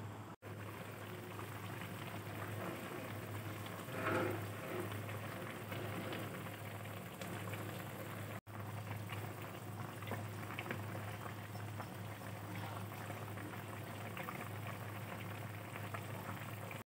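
Chicken tamarind soup boiling in a wok, a steady bubbling with many small pops over a low hum. A briefly louder sound comes about four seconds in.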